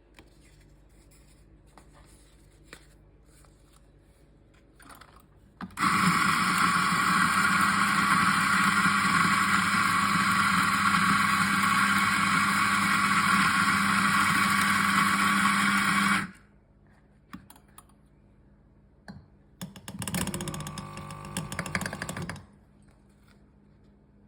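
Eureka Mignon electric coffee grinder running steadily for about ten seconds, grinding beans, with a few faint handling clicks before it starts. After a short pause comes a quieter sound with fast repeating ticks, lasting about two seconds.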